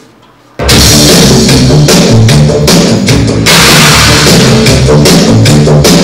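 Loud rock-style backing music with a drum kit and heavy bass starts suddenly about half a second in, after a brief hush.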